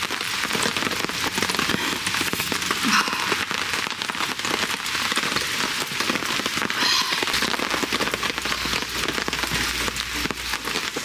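Steady rain pattering on a tarp shelter overhead: a dense, even crackle of drops.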